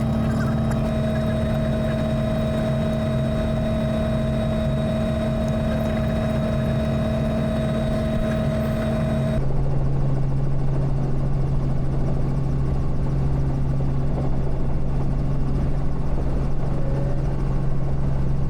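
Robinson R44 Raven I helicopter running, its Lycoming O-540 piston engine and rotors making a steady drone with tones held at a fixed pitch. About halfway through the sound changes suddenly to a lower, stronger hum.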